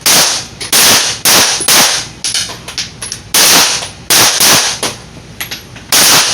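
Handgun shots during a timed qualification string: about eight sharp reports at uneven spacing, some close together, with a longer pause around two to three seconds in, each followed by a short echo.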